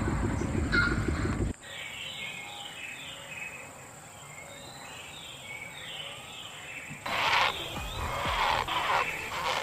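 Heron calls: about three loud, coarse calls between seven and nine seconds in, over small songbirds chirping. In the first second and a half a loud low rumble with repeated calls over it cuts off suddenly.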